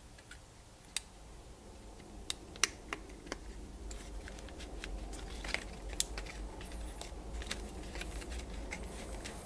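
Scattered small sharp clicks and crackles of stiff birch bark strips and multitool pliers as the last strip of an eight-pointed birch bark star is gripped, pulled tight and tucked, over a faint low hum.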